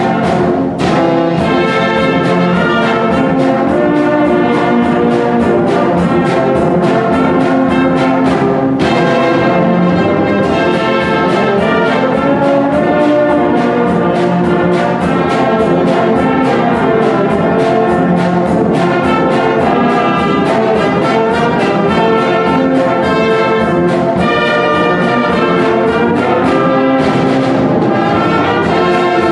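Wind band of trumpets, saxophones, clarinet, tenor horns and tubas playing together in full harmony, at a steady loud level with long held notes.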